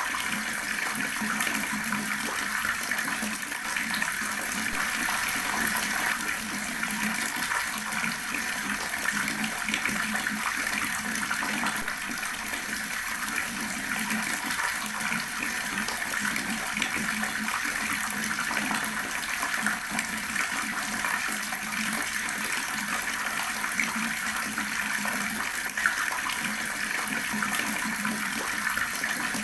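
Water tap left running, pouring a steady, unbroken stream of water.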